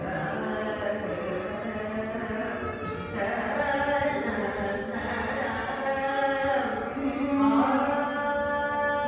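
Carnatic vocal music: a woman singing, accompanied by violin, sliding between notes and then holding long notes through the second half.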